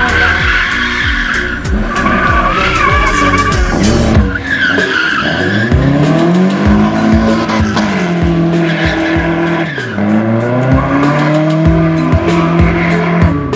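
Drift car's engine revving up and down in long sweeps, with tyres squealing as it slides sideways through a corner. Music plays over the first few seconds.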